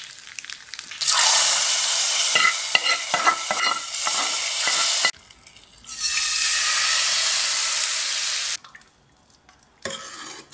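A tadka of hot oil and ghee with mustard seeds, dry red chillies and curry leaves sizzling and crackling loudly in two spells, the second as it is tipped into a pot of sambar. Near the end comes a ladle stirring the sambar, much quieter.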